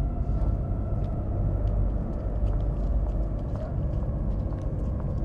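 Steady low rumble of street ambience, with faint scattered ticks above it.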